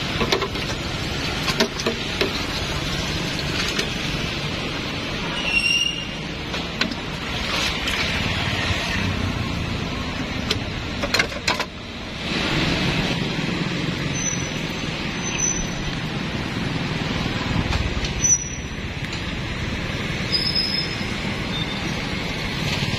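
Steady road traffic noise with occasional sharp clicks and knocks and a few brief high chirps.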